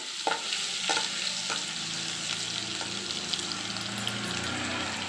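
Crushed garlic, crushed ginger, green chilli, mustard seeds and fennel sizzling in hot oil in a kadai, a steady frying hiss. A metal spoon stirs and clicks against the pan a few times in the first second and a half.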